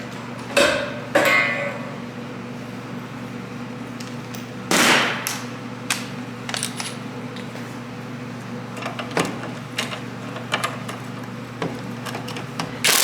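Metal tools clanking and scraping: a socket wrench and locking pliers working a heat-loosened nut off a broken bumper stud. The clanks and knocks are scattered, with a longer scrape near the middle, over a steady low hum.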